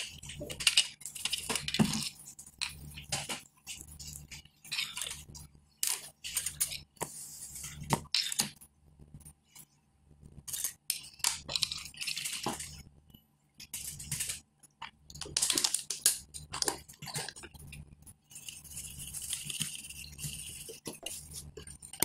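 Irregular clicks and rattles of a cordless phone base being taken apart by hand: its plastic housing and circuit boards knocking and scraping as they are lifted out and set down.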